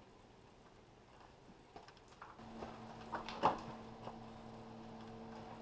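Scattered clicks and knocks of hand work on a motorhome's rear cap, with one sharp knock, the loudest, a little past halfway. A steady low hum starts about halfway through and carries on.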